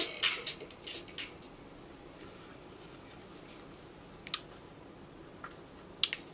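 Beat-driven music from a small PAM8403-amplified stereo speaker fades out about a second in, as its volume knob is turned down. Then come two sharp plastic clicks, about two seconds apart, from the knob and case being handled.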